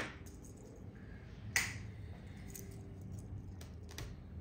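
A few short sharp clicks, the loudest about a second and a half in, with smaller ones near the start and near the end, over a faint steady room hum.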